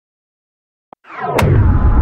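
Cinematic intro sound effect: silence, then about a second in a deep rumbling boom swells up with a sharp crack on top, sustaining into the title music.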